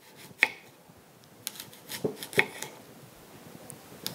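Kitchen knife slicing a cored apple into thick rounds, with a few sharp knocks as the blade goes through and strikes the wooden cutting board.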